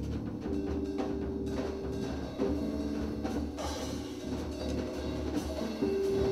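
Improvised jazz trio of keyboard, bass and drums playing live: held keyboard notes over a pulsing low bass line, with scattered drum and percussion strikes. One held note enters about half a second in, and another near the end.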